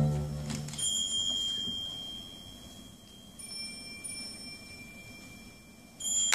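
Sparse bell-like chime notes in the dance music: a low held note fades out in the first second, then single high chime tones ring and slowly fade, about a second in, midway, and again near the end.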